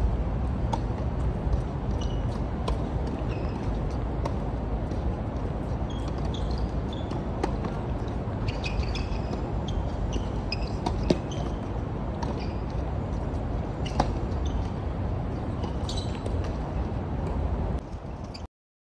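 Tennis balls struck by rackets and bouncing on an outdoor hard court: a scattering of sharp pops over a steady background hum, the loudest about eleven and fourteen seconds in. Short high chirps come and go through the middle, and the sound cuts off just before the end.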